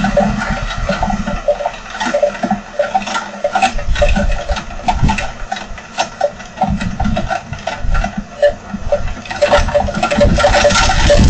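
Heavy rain with strong wind: a dense patter of raindrops striking hard, with gusts buffeting low and loud every few seconds and strongest near the end.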